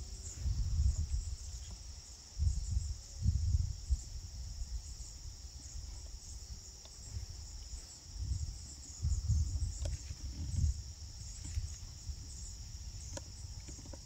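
A steady, high-pitched chorus of insects, broken by low rumbling bumps several times.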